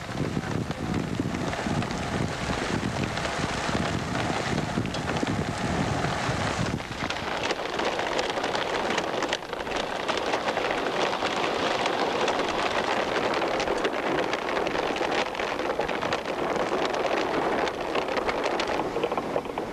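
Wind buffeting the camera microphone in a thunderstorm, with rain. About seven seconds in the low rumble falls away and a steady hiss with many small taps takes over.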